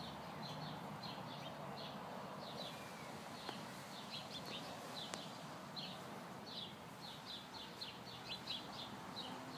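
Small birds chirping, many short high chirps coming irregularly a few times a second, over a faint steady outdoor background noise.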